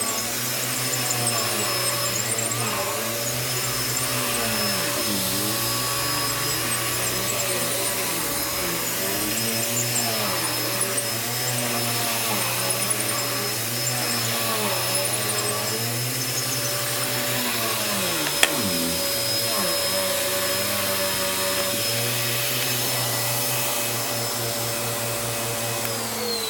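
Bissell Power Clean vacuum cleaner running steadily, beating the back of a thick rug turned upside down. Its pitch rises and falls about every two seconds, and there is a single sharp click partway through. Near the end it is switched off and its motor winds down in a falling whine.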